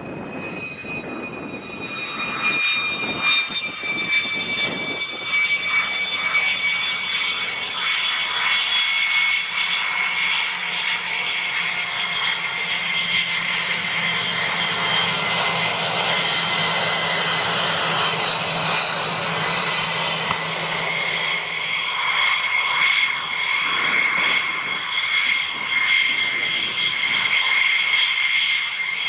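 F-16 Block 52+ fighter's Pratt & Whitney F100 turbofan at taxi power. It gives a high, steady jet whine whose pitch sinks slightly, over a broad rush. It grows louder over the first several seconds as the jet taxis close past, then holds loud.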